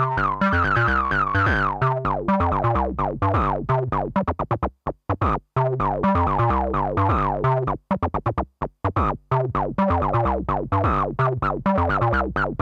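Twisted Electrons Acid8 MKII synthesizer playing a sequenced acid bassline on a rectangle-wave oscillator: fast, short staccato notes with falling filter sweeps. About a third and again about two thirds of the way through, the pattern thins to very short clipped notes with brief gaps.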